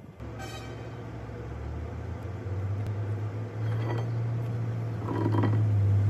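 Electric hydraulic pump motor running with a steady low hum, growing louder in steps as it drives a hydraulic ram against the excavator bucket ear. A couple of faint metal clinks.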